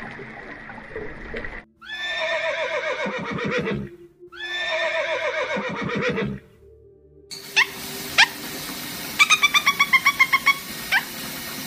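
Horse neighing twice, each whinny about two seconds long, falling in pitch and ending in a shuddering low flutter. Then a budgerigar chirps: two sharp single chirps, followed by a quick run of about a dozen.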